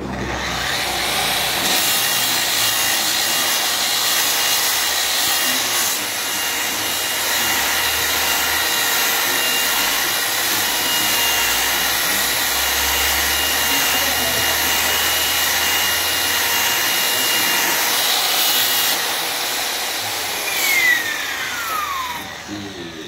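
DeWalt angle grinder with a diamond polishing pad running steadily against the edge of a granite slab, a high motor whine over the rasp of the pad on the stone. About 21 s in the whine falls in pitch as the grinder is switched off and spins down.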